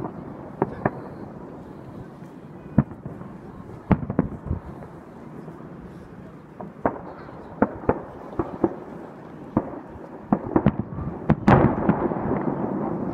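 Fireworks display: scattered bangs of aerial shells bursting, spaced a second or more apart at first, then coming faster, with a dense burst of bangs and crackling about two-thirds of the way in.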